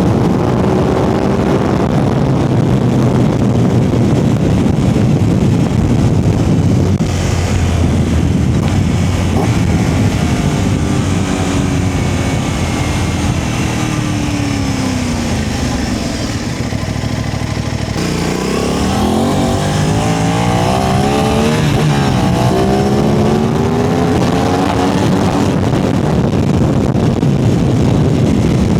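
Aprilia RS660's parallel-twin engine running under way. Its note falls gradually about halfway through, then its revs rise and fall several times in quick succession in the last third.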